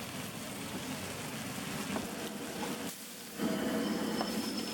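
Food sizzling and frying on a hot pan or tawa as a steady hiss. The hiss dips briefly about three seconds in, then comes back louder.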